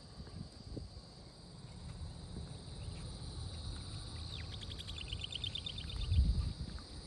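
A steady high insect chorus drones over a low rumble. About four seconds in, a bird gives a short falling whistle and then a rapid trill of repeated notes, about ten a second, lasting over a second. A stronger low rumble swells about six seconds in.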